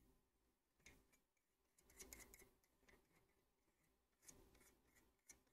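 Very faint scraping of a small spatula drawing solder paste across a reballing stencil: a few short strokes with near silence between them.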